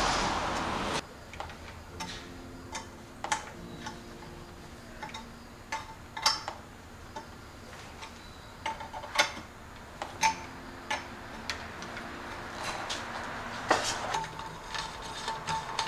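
Light, irregular metallic clicks and taps of a hex key working the stem faceplate bolts while a drop handlebar is set in the stem clamp. A louder rushing noise cuts off about a second in.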